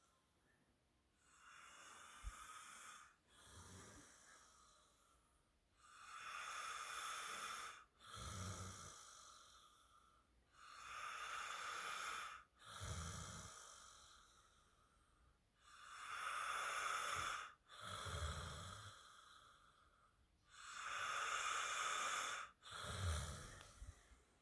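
A man snoring in deep sleep: five slow breath cycles about five seconds apart, each a long raspy breath followed by a short low snort, the first one weaker than the rest.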